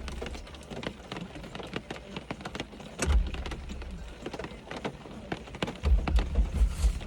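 Eating noises: chewing with many small irregular clicks, and a few low thumps about three seconds in and again near the end.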